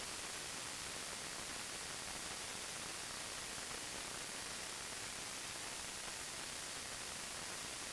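Steady hiss of a trail camera's microphone self-noise, even and unchanging, with no distinct calls or splashes standing out above it.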